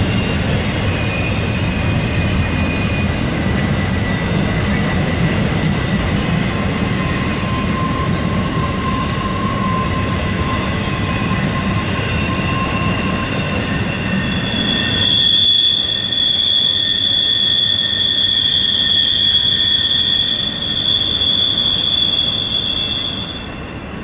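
Intermodal freight train rolling by with a low rumble and shifting high-pitched wheel squeals. About fifteen seconds in the rumble drops away and a single loud, steady high squeal takes over until just before the end: wheel flanges squealing against the rail on the sharp curve.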